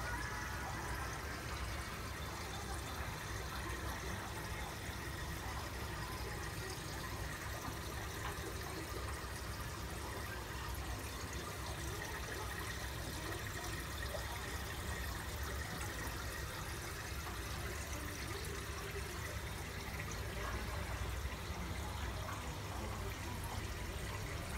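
Aquarium sponge filter driven by air, bubbling and trickling steadily, over a low steady hum.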